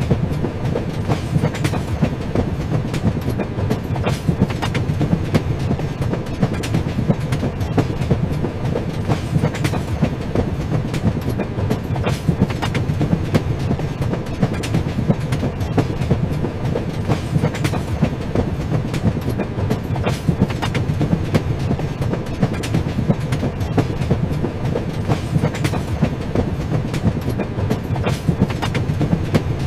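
Train running along the rails: a steady low rumble from the wheels and carriages, with many sharp clicks of the wheels over the track, the clickety-clack of rail joints.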